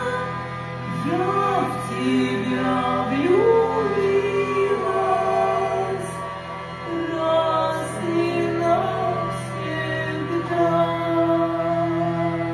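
Hurdy-gurdy playing a steady drone under a gliding melody, with a woman singing over it.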